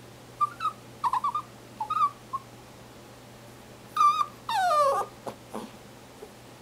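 Papillon dog squeaking and whining for attention: several short, high squeaks in the first two and a half seconds, then a wavering squeak and a longer whine that falls in pitch, the loudest, about four and a half seconds in.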